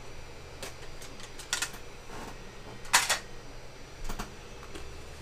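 Irregular clicks and knocks of small objects being handled and set down while someone rummages at a cluttered desk, about half a dozen in all, the loudest about three seconds in.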